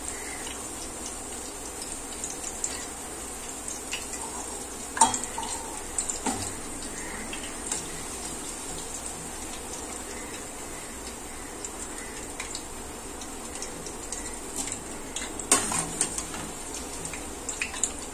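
Eggplant slices frying in hot oil with a steady sizzle, while a metal slotted spoon clinks and scrapes against the stainless steel kadai now and then as the fried pieces are scooped out.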